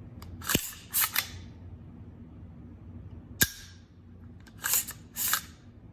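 AR-15 rifle being dry-fired: two sharp hammer-fall clicks about three seconds apart, each followed by a pair of metallic rasps as the charging handle is pulled back and let go to recock the hammer.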